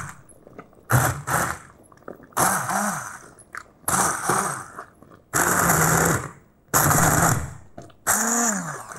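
Immersion blender run in about six short bursts of roughly a second each, puréeing a fish broth with pieces of fish and shellfish in a pot. The motor's hum rises and falls in pitch within some bursts as the blade churns through the broth.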